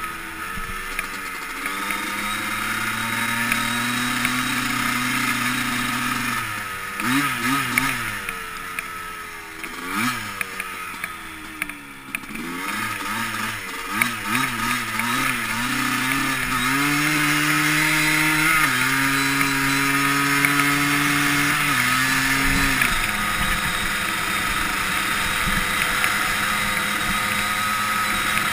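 Yamaha Blaster ATV's single-cylinder two-stroke engine running under way. Its note holds steady at first, rises and falls with the throttle through the middle, then holds a steady higher note.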